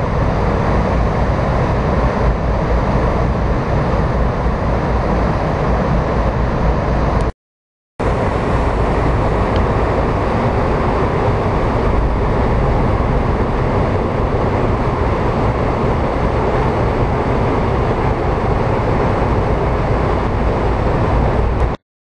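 Waterfall cascading down a rock face into the water: a loud, steady rush with a deep rumble underneath. The sound cuts out suddenly for under a second about a third of the way through, then resumes unchanged.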